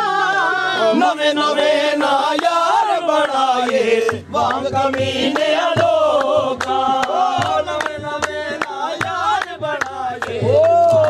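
Men's voices singing a devotional chant together, the long notes bending and gliding, over a steady drum beat.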